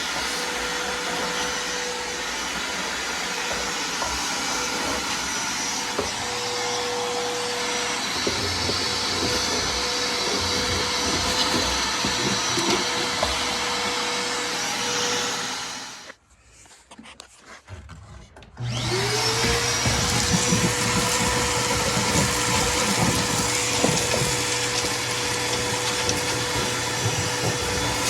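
Vacuum cleaner running steadily with a whine. It is switched off about 16 seconds in, and a couple of seconds later it is switched back on, its whine rising as the motor spins up, then running steadily again.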